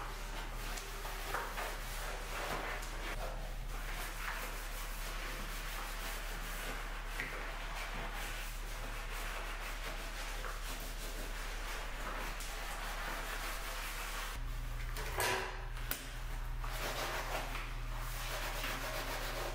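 Sponge in a rubber-gloved hand scrubbing soapy tile and metal shower fixtures: repeated rubbing strokes with a soft foamy scrape, and one brief louder scrape about fifteen seconds in.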